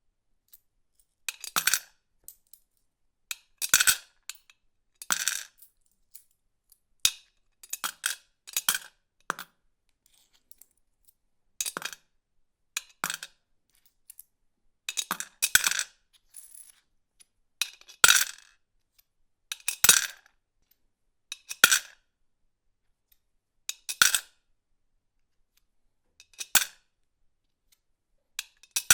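Coins dropped one at a time into a piggy bank, each landing as a brief clinking clatter against the coins already inside, repeated some fifteen to twenty times with short pauses between.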